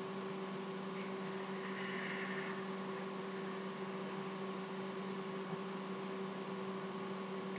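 Steady electrical hum with background hiss, a low buzz with a few fixed tones and no other event.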